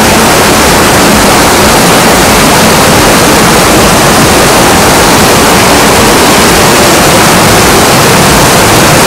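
Wind rushing over the microphone of a moving scooter: a loud, steady, even rush with no distinct tones.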